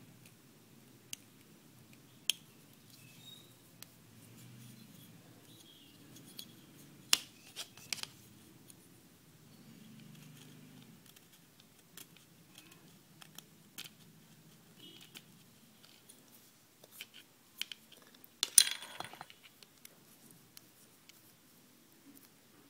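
Small knife blade whittling and scraping a thin wooden stick, with scattered sharp clicks and taps and a louder cluster of scraping about three-quarters of the way through.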